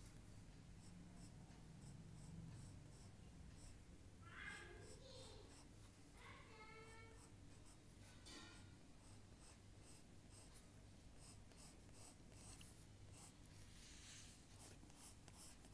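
Faint strokes of a drawing tool scratching on paper, becoming a run of quick short strokes in the second half. Three short pitched sounds come around the middle.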